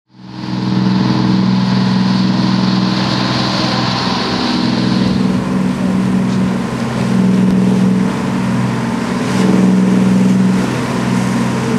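Motoryacht engine running steadily while cruising, a constant low hum, with a hiss over it for the first five seconds or so.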